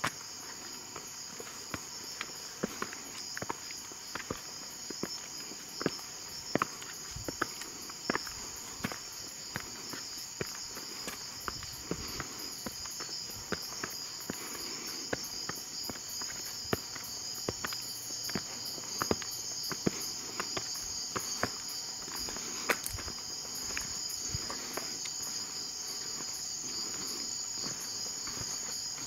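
A steady, high-pitched chorus of night insects, with irregular footsteps on stone and grit.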